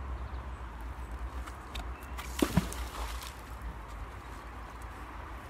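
Two sharp knocks close together about two and a half seconds in, over a steady low rumble and scattered small clicks.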